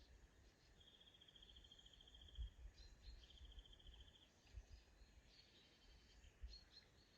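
Faint birdsong: two rapid high trills, each about a second and a half long, one after the other, then a few short high chirps. A soft low rumble with occasional bumps lies under them.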